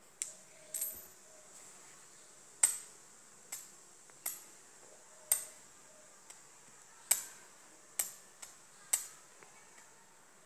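A polished black shaligram stone knocked against a metal coin: about nine sharp clinks at uneven intervals, each with a short high ring.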